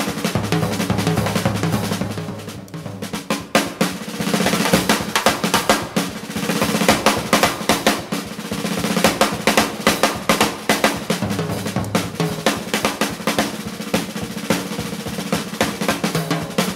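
Drum-led background music: fast, busy drum strokes over a sustained low tone.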